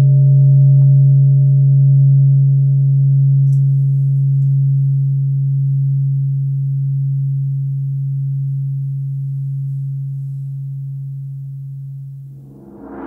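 Large forged Tibetan gong ringing out after a strike: a steady low hum with fainter overtones slowly fading. Near the end a hand laid on its face damps it.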